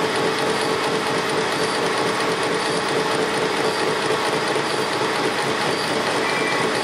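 Metal lathe running steadily, turning a connecting rod clamped off-centre on a faceplate fixture while the tool takes a light cut of about 25 thousandths to lighten the rod, with a steady hum.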